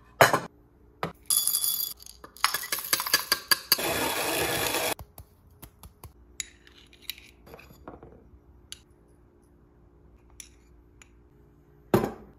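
Stainless-steel parts of a Kamira moka espresso maker and ROK hand grinder being handled, with sharp metal clicks as a part is lifted off at the start and set back down near the end. About a second in come loud rattling and then a steady harsh noise lasting until about five seconds in, followed by small scattered clinks.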